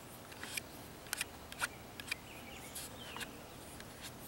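Birds chirping outdoors: a scattered run of short, sharp chirps and chip calls, one with a quick falling note about three seconds in, over a faint steady background hiss.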